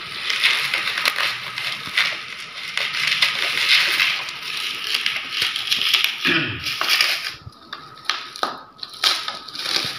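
Clear plastic bubble wrap crinkling and crackling as a bottle is unwrapped by hand, a dense run of small crackles that thins out briefly about three quarters of the way through.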